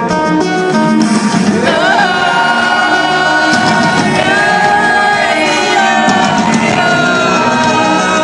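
Rock band playing live, with a sung melody of long held notes that glide up and down over guitars and drums.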